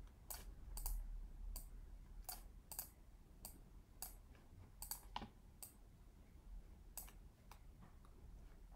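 Faint computer mouse clicks, a dozen or so at irregular spacing.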